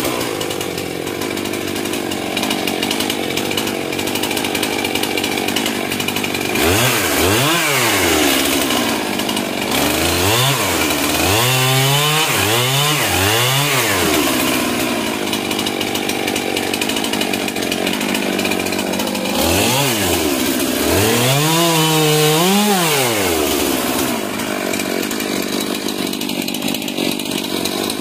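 Stihl MS 441 C two-stroke chainsaw running while cutting up a fallen tree's wood. Its engine speed swings up and down again and again as the throttle is squeezed and eased, in three spells of revving.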